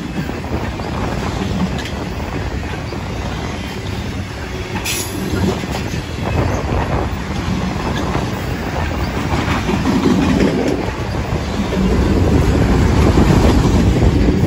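Autorack freight cars rolling past close by: a steady rumble and rattle of steel wheels on rail, with a brief sharp metallic screech about five seconds in, growing louder near the end.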